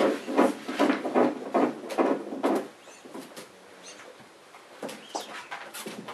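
Litter of puppies scuffling and wrestling in a plastic dog bed: a quick run of rustling, scrabbling bursts for the first couple of seconds, then quieter shuffling with a few faint puppy squeaks.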